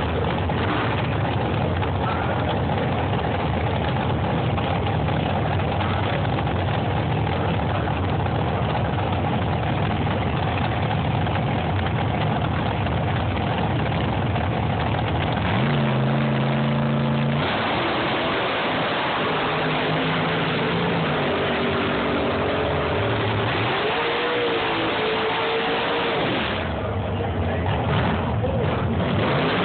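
Supercharged front-engine dragster's engine idling loudly at the starting line, then revving and launching away down the strip about halfway through, its pitch rising and falling as it goes.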